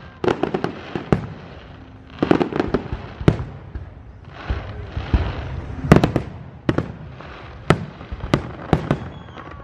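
Aerial fireworks shells bursting in quick succession: sharp bangs in clusters, with a stretch of dense crackling about five seconds in, then single bangs every second or so.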